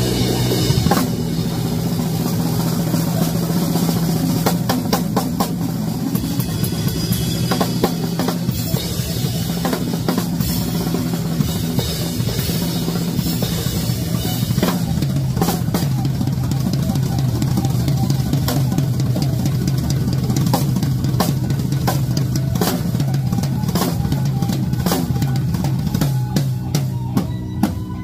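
Drum kit played in a continuous, busy jam: dense snare, tom and bass drum hits with cymbal crashes, over a steady low tone. Near the end the strokes become more spaced out and stand apart as single loud hits.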